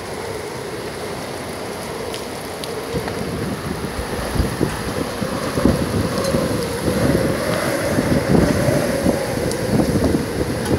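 Heavy rain pouring down on a wooden deck and open harbour water, with gusts of wind buffeting the microphone and a wavering hum running through it. The downpour grows a little louder about four seconds in.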